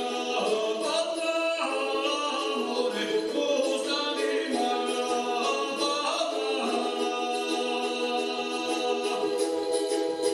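A man singing a Serbian folk melody in long held notes that step from one pitch to the next.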